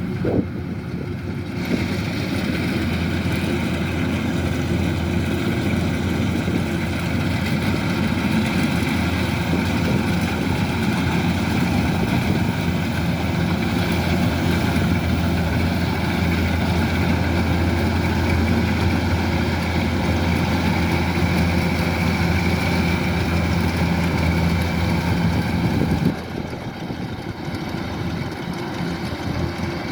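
Kubota DC-105X rice combine harvester running steadily, its diesel engine droning under a hiss of machinery. The sound steps up louder and brighter about two seconds in and drops back a little near the end.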